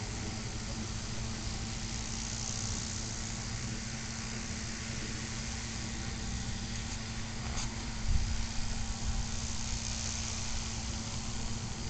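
Small fuel-burning engine of a radio-controlled model powered hang glider running at a steady speed while it warms up, an even drone over a steady hiss. A single thump about eight seconds in.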